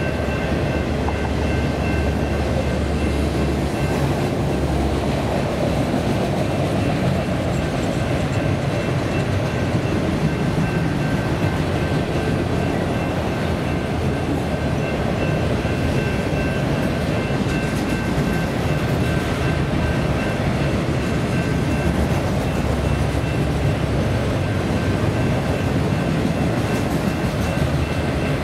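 A freight train of autorack cars rolling steadily past, a continuous rumble and rattle of cars and wheels on the rails. A faint, steady high tone sits above it and fades out about twenty seconds in.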